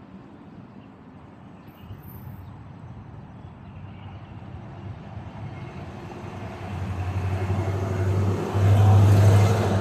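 A motor vehicle going by: its engine and tyre noise grows over several seconds to its loudest near the end, with a steady low hum.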